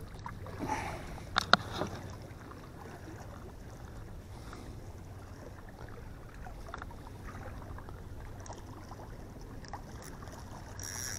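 Sea water lapping softly against jetty rocks, faint and steady. A few sharp knocks and clicks come in the first two seconds.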